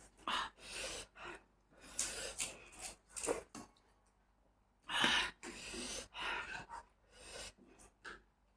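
Close-miked mouth sounds of eating: a series of short crunching and chewing bursts with breaths in between, the loudest about five seconds in.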